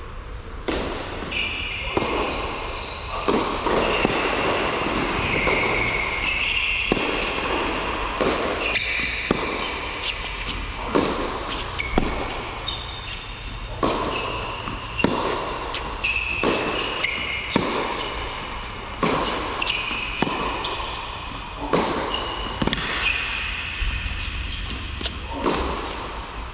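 Tennis rally: sharp racket strikes and ball bounces every second or two, echoing in the indoor hall, with high squeaks between the hits.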